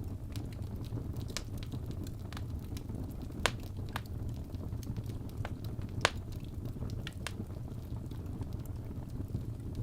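Wood fire crackling in a fireplace, with scattered sharp pops, two louder pops about three and a half and six seconds in, over a low steady rumble.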